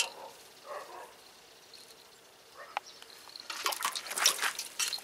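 Water splashing in an aluminium pot as a cat paws at a live crucian carp in it: a splash at the start, a quiet stretch with a single click, then a run of quick splashes from about three and a half seconds in.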